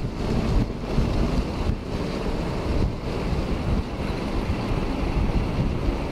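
Wind rushing over the microphone of a skater moving at speed on inline skates, mixed with the rolling hiss of the skate wheels on wet asphalt. The rushing eases briefly about once a second.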